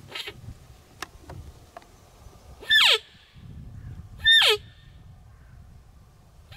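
Roe deer call (blatter) sounded twice, about a second and a half apart near the middle: short, loud, squeaky notes that slide sharply down in pitch. It imitates a roe deer's fiep to lure a buck during the rut, and here it is drawing a curious young fox.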